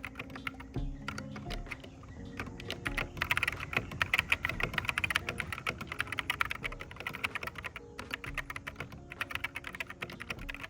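Typing sound test on a stock, unmodded Ractous RTK61BP budget mechanical keyboard with optical switches: a fast, uneven patter of keystroke clicks, densest in the middle. The sound is called "definitely the worst sound ever".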